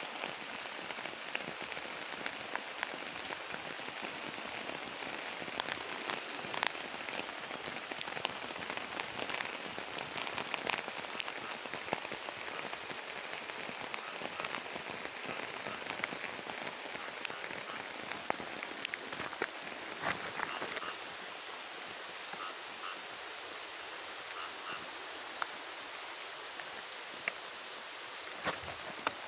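Steady rain falling on palm fronds and grass: an even hiss with many individual drops tapping through it.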